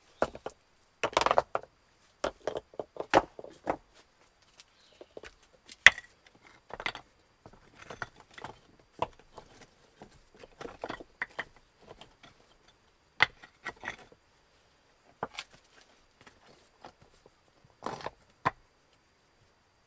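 Irregular light knocks, clicks and rustles of handling, coming in scattered clusters with short quiet gaps between them.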